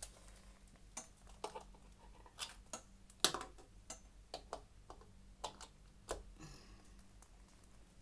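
Faint, scattered clicks and knocks of an electric kettle's three-pin plug being handled and pushed into a wall socket, with one sharper click about three seconds in.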